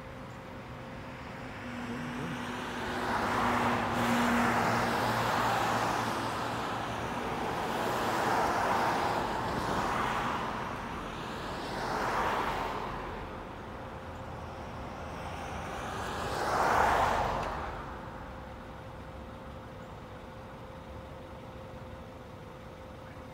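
Several cars passing by in turn on the road, each swelling and fading away, the loudest one late on.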